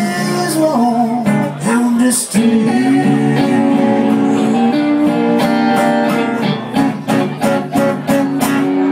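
Live blues played on acoustic and electric guitars, with a man singing; strummed chords keep a steady beat in the last couple of seconds.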